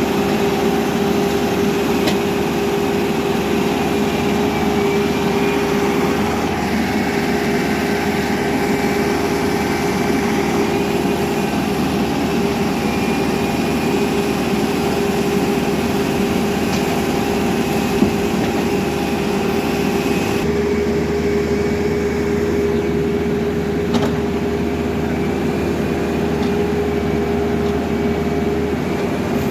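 Caterpillar backhoe loader's diesel engine running steadily with a constant hum, with a couple of brief clicks; the sound shifts abruptly about two-thirds of the way through.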